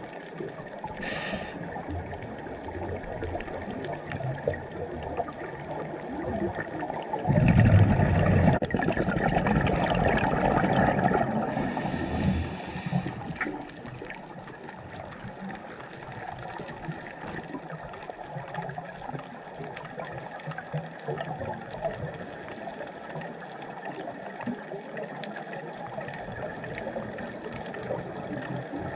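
Scuba diver breathing through a regulator, heard underwater: a short hiss of an inhale about a second in, a loud rush of exhaled bubbles from about seven seconds in that lasts several seconds, another inhale hiss soon after, and a low gurgling wash between breaths.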